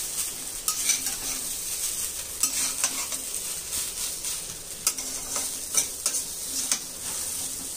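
Fried rice being stirred and mixed in a hot pan: boiled basmati rice, eggs and vegetables sizzling steadily on a low flame, with a utensil scraping and clacking against the pan at irregular moments.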